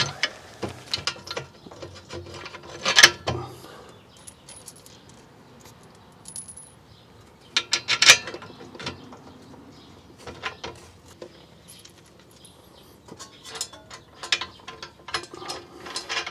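Hand ratchet clicking in short runs and metal clinking as the bolts on an exhaust pipe flange joint are started and run in. The bursts come in several spurts with pauses between them.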